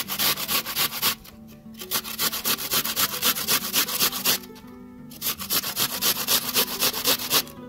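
A peeled onion being grated on a stainless steel box grater: quick scraping strokes, several a second, in runs that stop briefly about a second in and again about halfway through. Faint background music runs underneath.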